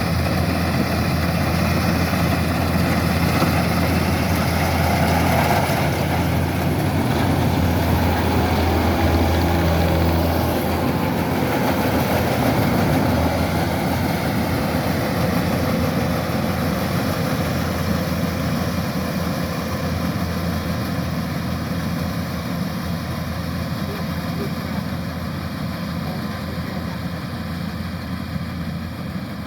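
Kubota rice combine harvester's diesel engine running steadily, a low, even drone that grows gradually quieter over the second half.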